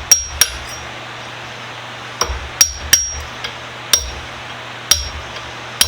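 Hammer tapping on metal: about eight sharp, irregularly spaced blows, each with a brief high metallic ring.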